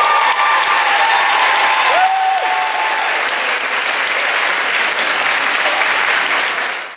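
Audience applauding and cheering, with a few high whoops over the clapping in the first seconds. It fades out at the very end.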